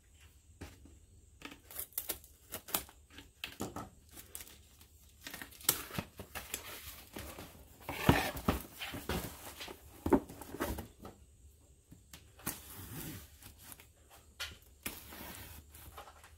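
Plastic shrink-wrap being slit with a pocket knife and torn off a cardboard box, with crinkling and rustling, and the box knocking on a wooden workbench. The loudest knocks come about halfway through, as the box is tipped on its side.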